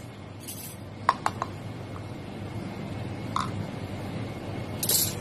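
A few small clinks and taps of espresso gear being handled on a counter, three quick ones a little over a second in and another a couple of seconds later, then a brief hiss near the end, over a steady low hum.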